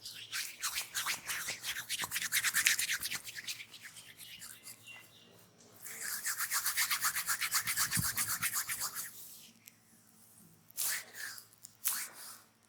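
Hands rubbing briskly back and forth over oiled skin in a massage, fast even strokes about six a second, in two long runs with two short bursts near the end.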